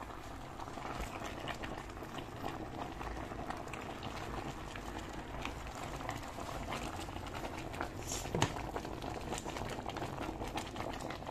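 Pot of meat stock with ground egusi melon seed added, bubbling at a boil with steady small pops and crackles. One sharper click about eight seconds in.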